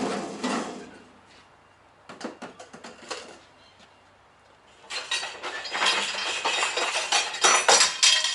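Hard objects being handled: a few scattered clinks and clicks, then dense clattering and rustling from about five seconds in.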